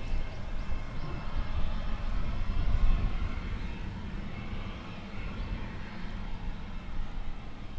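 Cessna Citation business jet's turbofan engine running during an engine adjustment, with a cowling panel open: a steady turbine whine over a low rumble. The rumble is loudest in the first three seconds and then eases off.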